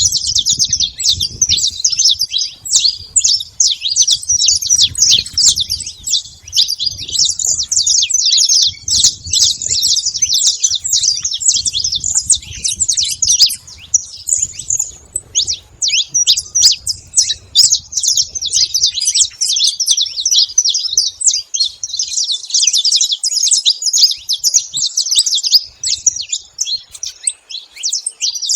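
A flock of saffron finches calling and singing at once: a dense, continuous chatter of many overlapping high chirps. A low rumble sits underneath for the first two-thirds, then stops.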